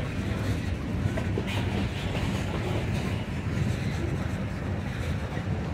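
Covered hopper cars of a CSX freight train rolling past, a steady rumble of steel wheels on rail.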